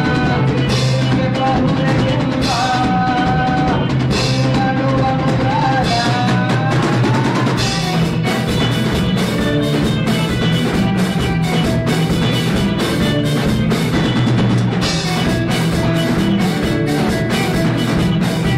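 A band's song with a full drum kit keeping the beat; a held, gliding melody line rides over it for the first few seconds, then the drumming grows denser from about eight seconds in.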